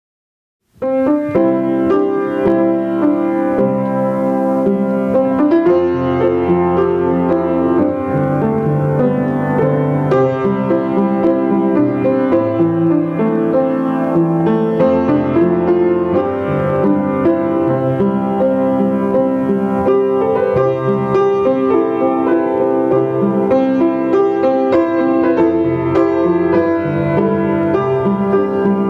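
Upright piano played solo, a flowing run of notes and chords that begins about a second in.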